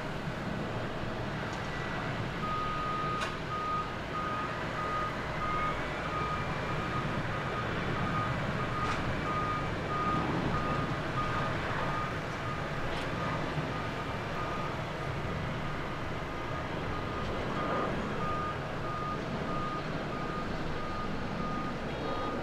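Boeing 737-700 jet engines, CFM56 turbofans, at takeoff power through the takeoff roll, lift-off and climb: a steady rushing noise with a fan whine that rises a few seconds in and then holds. A steady, regularly repeated high electronic beep runs alongside from about two seconds in.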